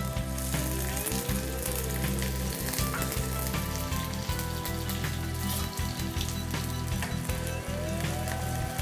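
Chopped onions sizzling in hot oil in an iron kadhai: a steady frying hiss dense with small crackles.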